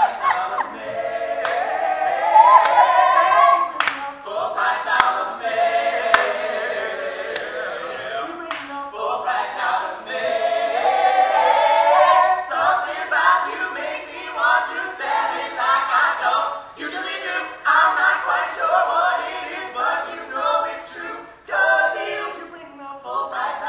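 A four-voice ensemble of men and women singing a cappella in close harmony, with a few sharp clicks in the first several seconds.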